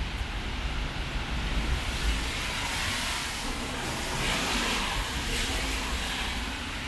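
Traffic on a rain-wet road: a steady hiss of tyres on wet asphalt over a low rumble, swelling in the middle as a vehicle passes.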